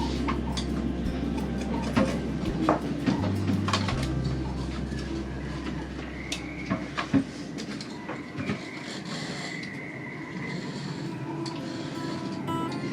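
Low steady background music with several sharp clicks and knocks scattered through it; the low bass fades out about halfway through.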